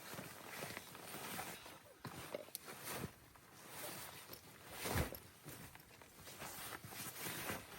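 A person moving about and handling things in snow: irregular crunching and rustling, with one louder thud about five seconds in.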